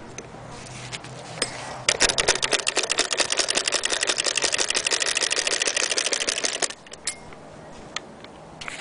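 Antique Singer Model 12K hand-crank fiddle-base sewing machine running, its mechanism making a rapid, even clacking of about ten clicks a second. It starts about two seconds in and stops abruptly after about five seconds.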